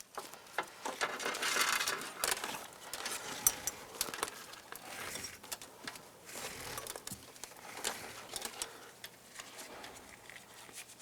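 Wires being pulled by hand through a rubber boot: irregular rubbing and rustling with small clicks and knocks, busiest in the first few seconds.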